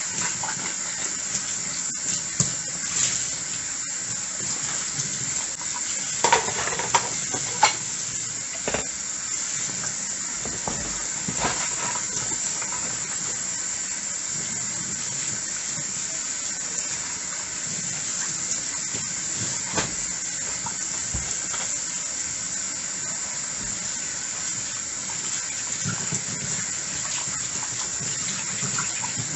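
Tap water running steadily into a sink while dishes are washed, with sharp clinks of dishes and utensils knocking together, several in quick succession about six to eight seconds in and a few more around the middle.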